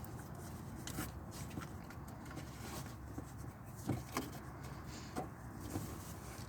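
A few faint knocks and rustles of hands fitting a serpentine belt around the engine's pulleys, over a low steady background noise.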